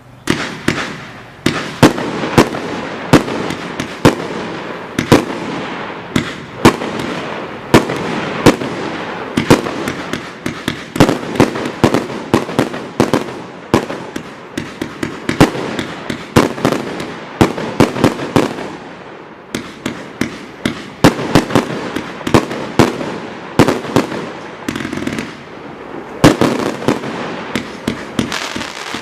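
Hallmark Fireworks 'Extravaganza' firework going off: a fast, continuous run of sharp bangs, often two or three a second, over steady crackling, starting suddenly right at the beginning.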